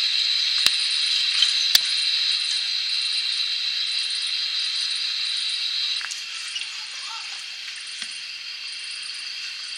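Evening insect chorus: a steady, high-pitched shrill with a faster pulsing trill above it, dropping a little in level about six seconds in. A few sharp clicks stand out against it.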